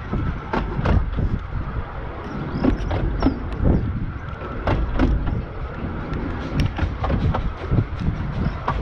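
A 15-inch-gauge train running along the line: a steady low rumble of wheels on rail, broken by frequent irregular knocks and rattles.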